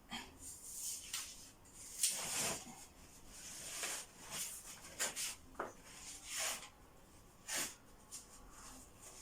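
Old wallpaper being torn and scraped off a wall: a series of short, irregular scraping and tearing sounds, the longest about two seconds in.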